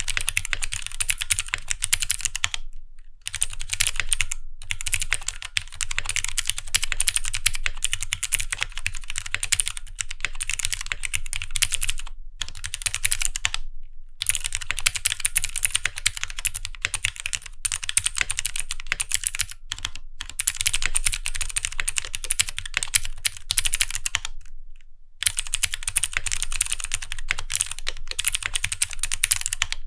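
Fast typing on a Keychron Q1 mechanical keyboard fitted with 82 different switch types and clear ABS keycaps. The keystrokes run in dense clattering stretches, broken by a few short pauses.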